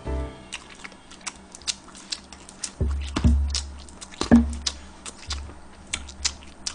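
Eating close to a microphone: a metal spoon clicking and scraping irregularly in a plastic container of seasoned rice, with mouth and chewing sounds, over quiet background music.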